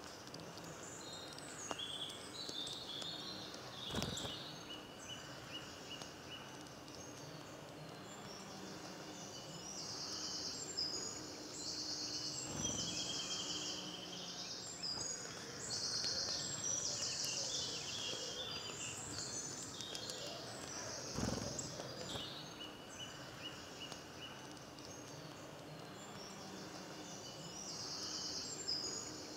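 Spring woodland birdsong: several songbirds singing high, trilled phrases over and over, with a couple of short knocks, one a few seconds in and one about two-thirds through.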